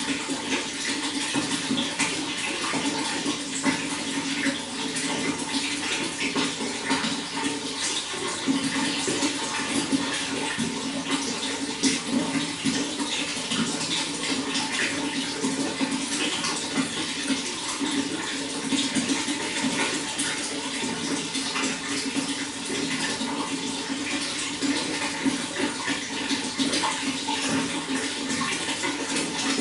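Water running and splashing steadily, a continuous flow with many small splashes and no pauses.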